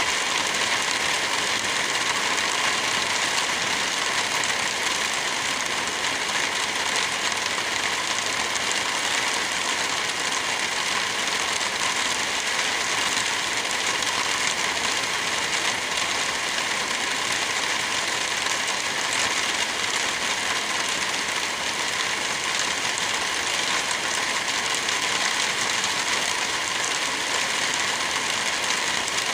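Steady, even rain falling, a constant hiss with no breaks.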